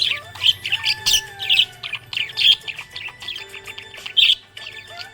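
Budgerigar chirping and chattering in quick, high, rapid-fire calls, with several louder chirps along the way.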